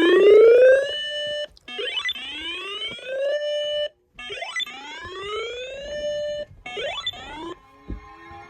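Weather alert radio sounding a siren-style alarm: a rising whoop that climbs and then holds, repeated four times about two seconds apart. Near the end the whoops stop and a steady high alert tone begins.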